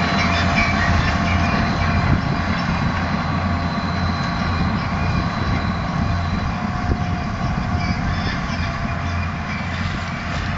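A vehicle engine running steadily with a low hum and rattle, without changing pace.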